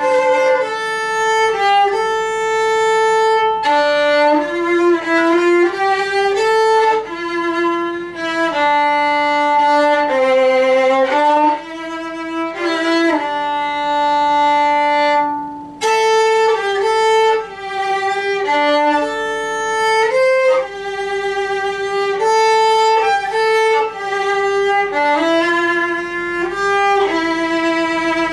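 Violin playing a melody in held notes, moving from note to note with short dips in loudness between phrases.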